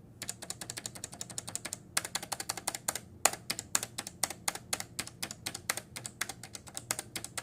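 Keycaps on Fujitsu leaf-spring keyboard sliders being tapped quickly over and over: a fast run of short clacks with a couple of brief pauses.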